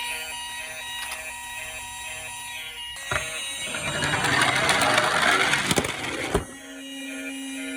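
Toy emergency vehicle sirens sounding as a steady electronic pattern of repeating beeps, with a louder plastic rolling rattle from about three seconds in, as a toy minicar runs down a slope. The rattle lasts about three seconds and stops suddenly.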